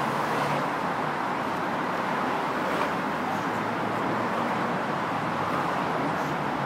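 Steady street traffic noise, an even rumble with no distinct knocks.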